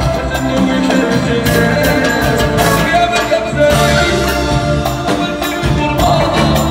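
Live rai band playing: violins carrying the melody over a steady beat from drum kit, congas and goblet drum, with a male voice singing through a microphone.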